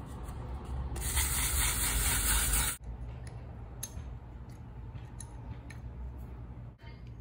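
WD-40 aerosol can spraying one steady hissing burst of almost two seconds onto a rusty metal jointer part, to loosen rust. After it, a few faint light metal clicks as a small wrench works on the cutter head.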